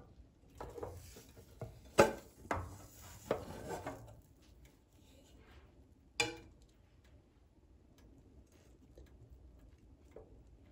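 Two frying pans knocking and scraping together as a pan-cooked cake is flipped from one pan into the other. The sharpest clack comes about two seconds in, and a last knock comes about six seconds in.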